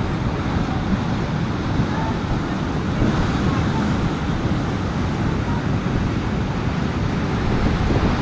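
Storm surf breaking on the shore with strong wind buffeting the microphone, a dense steady rush heaviest in the low end.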